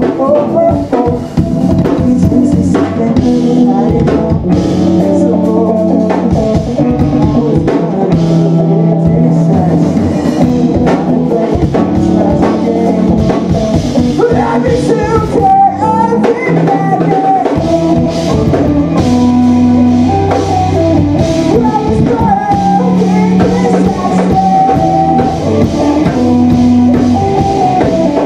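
Live rock band playing loud, with two electric guitars and a drum kit, and a singer at the microphone.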